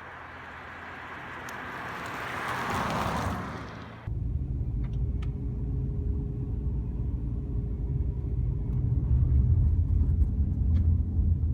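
A car goes by, its noise swelling and then fading over about four seconds. Then it cuts abruptly to the steady low rumble of a car driving, as heard inside the cabin.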